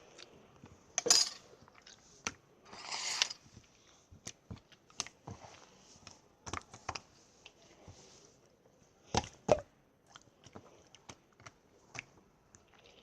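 Hands squishing and pressing clear slime, giving irregular sticky pops and clicks, with a few longer squelches.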